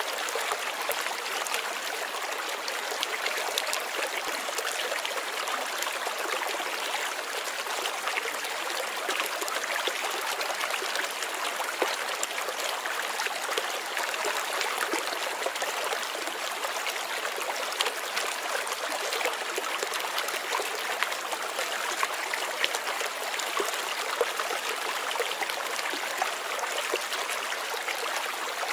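A small stream flowing and trickling: a steady, even rush of water with many fine little splashes throughout.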